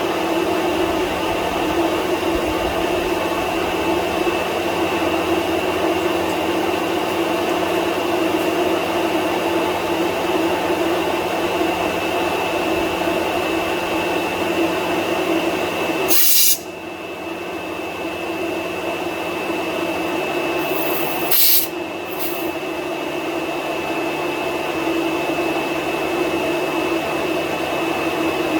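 Two electric radiator cooling fans running steadily, switched on together with the in-tank fuel pump while the engine is off. A little past halfway comes a short hiss of compressed air, and another about five seconds later.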